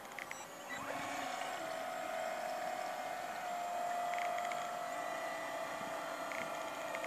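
Radio-controlled model pilot boat's motor running under way, a steady whine that comes in about a second in and holds, dipping slightly in pitch midway.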